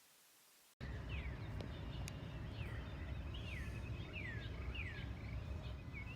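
A bird calling over and over, each call a short note that slides down in pitch, roughly one or two a second, over a steady low rumble. It starts suddenly under a second in, after near silence.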